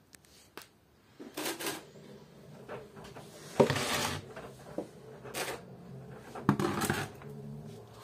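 LG Inverter DirectDrive front-loading washing machine tumbling a wet load. Its drum turns in short spells, and the laundry splashes and thumps about four times.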